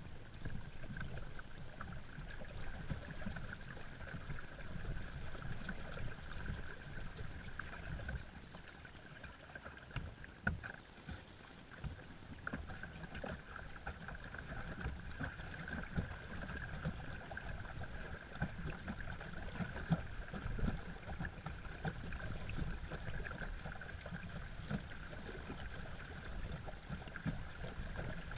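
Hand-turned paddlewheel with fibreglass-covered pine blades churning and splashing the water under a steady low rumble. It eases off from about eight to twelve seconds in, then picks up again.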